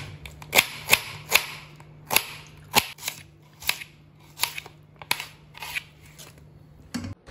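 Kitchen knife slicing a small red onion on a steel plate, each cut ending in a crisp click of the blade on the metal, roughly two a second and unevenly spaced.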